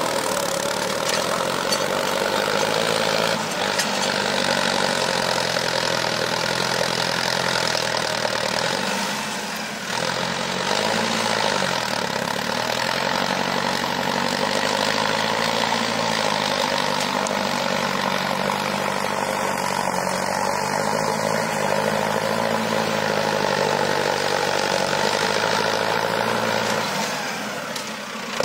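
Mahindra Arjun Novo 605 tractor's four-cylinder diesel engine running steadily under load while pulling a tine cultivator through dry soil. Its pitch wavers slightly, and the level dips briefly about ten seconds in and again near the end.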